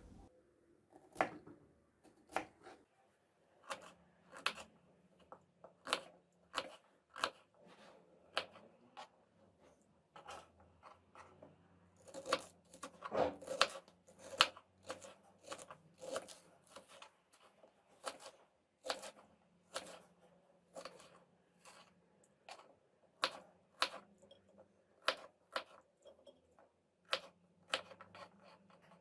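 Kitchen knife cutting radishes, onion and garlic on a cutting board: sparse, irregular knocks of the blade against the board, with a quicker run of cuts about halfway through.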